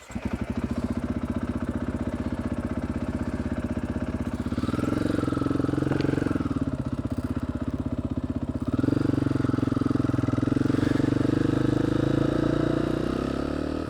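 Dirt bike engine running steadily, its pitch and level shifting around five seconds in and rising again about nine seconds in, then fading out near the end.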